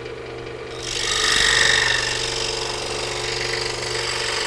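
Scroll saw running with a steady hum, its blade starting to cut into a wooden board about a second in, adding a rasping sawing sound.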